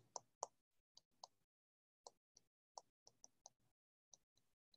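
Faint, irregular clicks of a stylus tapping on a tablet while handwriting, about a dozen over the few seconds, in otherwise near silence.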